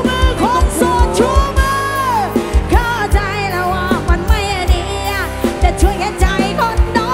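Loud live band music from a Thai rot hae sound truck: a steady, fast beat under a bending, wavering lead melody line.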